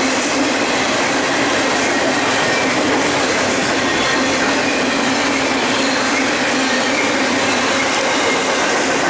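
Double-stack container cars of a freight train rolling past at speed, making a steady loud noise of steel wheels on rail with a faint high whine running through it.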